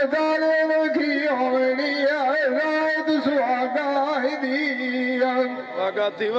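A man singing a Saraiki dholay folk verse, holding long notes with wavering ornaments, with a brief break near the end.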